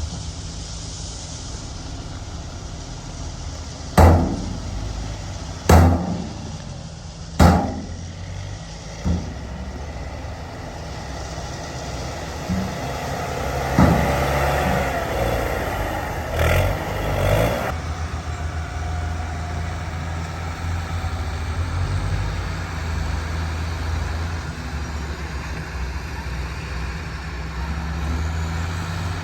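Diesel engine of heavy earth-moving machinery running steadily, with three loud bangs about two seconds apart a few seconds in, a fainter knock after them, and a louder rumbling stretch around the middle.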